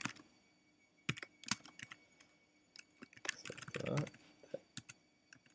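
Typing on a computer keyboard: irregular, separate keystrokes as a name is typed.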